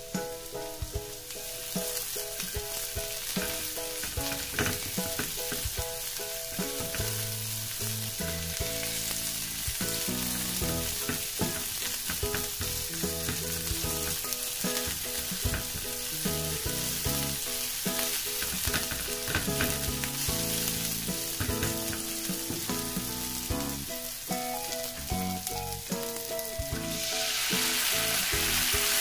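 Minced garlic and red chili strips sizzling in oil in a nonstick frying pan, with a silicone spatula stirring and scraping them in short clicks. About 27 seconds in, the sizzle jumps louder as soy and oyster sauce is poured into the hot pan.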